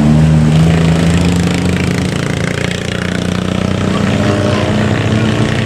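Engines of cars, motorcycles and a truck working through a steep hairpin bend at close range. A low engine note drifts down a little over the first two seconds and then holds steady, under the noise of the passing traffic.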